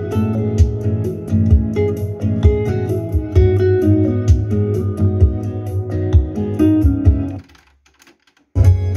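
Recorded music with a steady beat, played from a cassette on a Pioneer CT-W606DR digital-processing double cassette deck through loudspeakers. It drops out for about a second near the end, then starts again.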